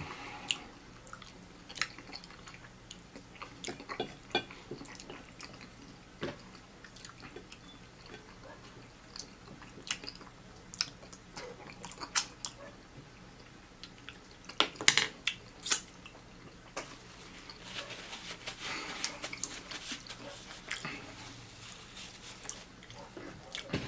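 Close-up chewing and wet mouth sounds of someone eating cheesy Hamburger Helper pasta, with scattered small clicks and smacks and a few sharper ones about fifteen seconds in.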